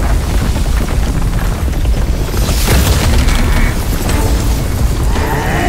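Cinematic battle sound effects: a deep, continuous rumbling boom, with a crashing blast about two and a half seconds in, under dramatic music.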